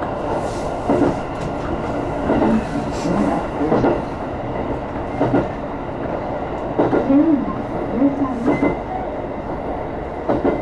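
Electric train running along the track, heard from inside the car: a steady rolling rumble with clacks from the wheels and rail joints every second or so.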